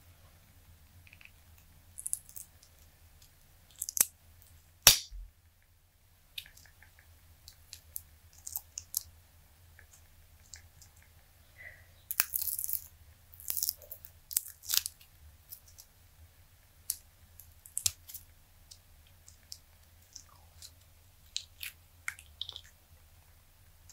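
Silicone dice molds being flexed and peeled off cured green resin dice: irregular sharp clicks and short crackles as the silicone pulls away from the resin, the loudest snap about five seconds in and a busier run of crackles around the middle.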